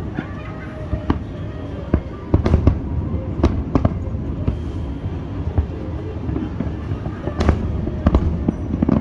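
Aerial fireworks bursting: a string of sharp bangs, with the loudest ones about two and a half seconds in and again past seven seconds, over a steady low rumble.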